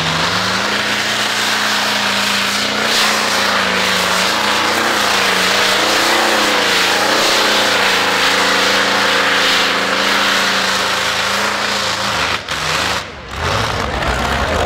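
Pulling tractor's diesel engine running flat out under full load as it drags the brake sled down the track, one steady high engine note. About twelve seconds in the engine drops off and the sound briefly dips, then picks up again near the end.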